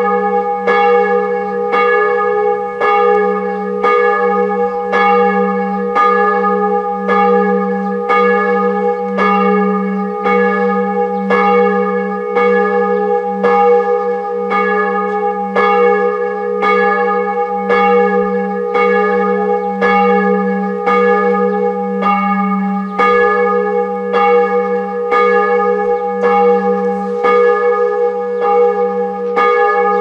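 Church bells ringing, struck in an even rhythm of about one and a half strokes a second, with a steady low hum sounding on between the strokes.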